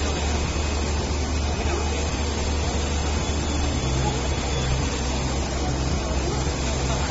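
HandTop HT1600HR8 UV printer running, its print-head carriage traversing the media, over a steady low machine hum. From about halfway through, a second low tone comes and goes.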